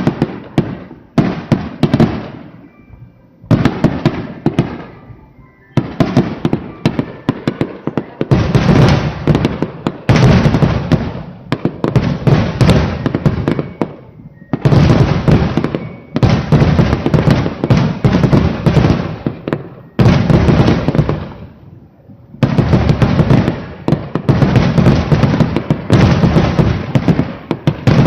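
Rapid-fire aerial firework shells bursting in a finale barrage. Dense volleys of cracks and booms come packed close together, several seconds at a time, with short lulls about 3, 6, 8, 14 and 21 seconds in.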